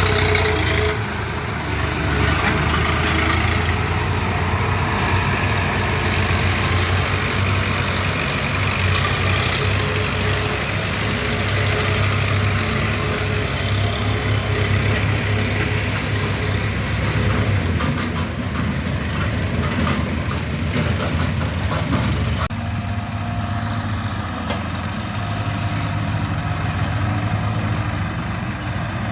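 Heavy diesel machinery engine running steadily under work, a low even hum, with rattling clicks for a few seconds and an abrupt change in the engine sound about three quarters of the way through.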